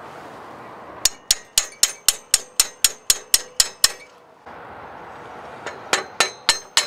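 Hammer tapping steel on steel, driving a cross pin into a Hi-Lift jack's running gear: a steady run of sharp, ringing strikes, about four a second, for about three seconds. After a pause of about two seconds a second run of strikes starts near the end.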